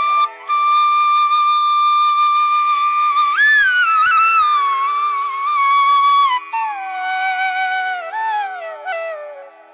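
Flute music: a slow melody of long held notes that slide up and down between pitches, over a steady low drone, dropping in pitch and fading near the end.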